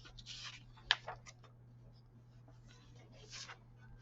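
Light handling noises: a few soft rustles and small clicks, with one sharper click about a second in, over a steady low hum.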